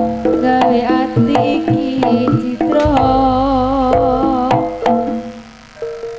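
Javanese jaranan music: sharp hand-drum strokes under a sustained, wavering melody line with vibrato, getting quieter near the end.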